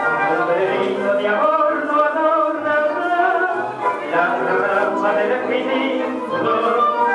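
Recorded Argentine tango music: an orchestra with a male singer.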